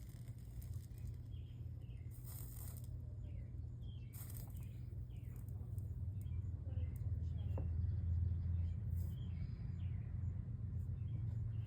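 Soldering on a stained-glass chime: two brief sizzles of flux and solder under the iron, over a steady low hum. Faint bird chirps sound in the background.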